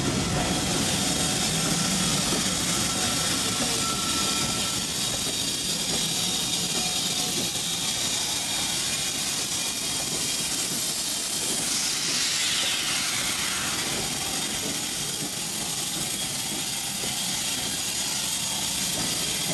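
Steam locomotive hissing steadily as steam escapes, a loud even rush with no exhaust beats. A fainter sound falls in pitch about twelve seconds in.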